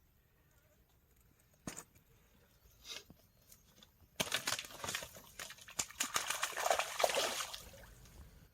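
Water splashing and sloshing for about three and a half seconds, starting about four seconds in and fading near the end, after a few isolated faint taps.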